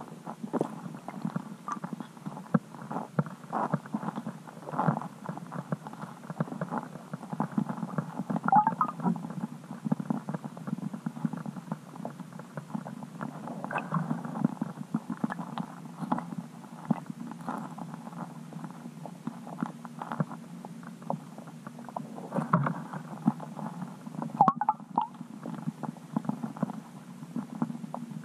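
Muffled underwater noise picked up by a camera in a waterproof housing: a steady low rumble with irregular soft knocks and clicks.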